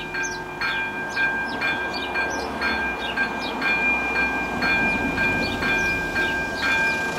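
Railway level-crossing warning bell ringing steadily, about two strokes a second, as the crossing is active for an approaching train. A car drives over the crossing partway through, adding a low rumble.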